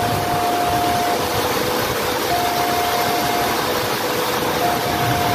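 Railway level-crossing warning alarm sounding a slow two-tone electronic signal, a higher tone alternating with a lower one about every second, the warning that a train is approaching. Under it is a steady hiss of light rain and wind.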